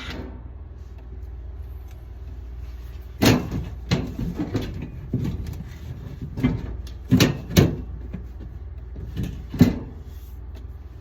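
Irregular knocks and clunks, about eight over several seconds, from refrigerator parts and panels being handled, over a steady low hum.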